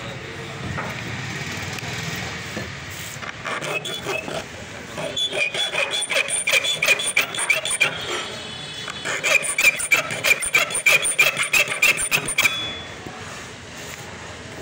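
A thin round file is stroked quickly back and forth over the steel teeth of a hole saw, sharpening them, with a squealing, scraping rasp at about four strokes a second. The filing comes in two runs with a short pause between, and stops near the end.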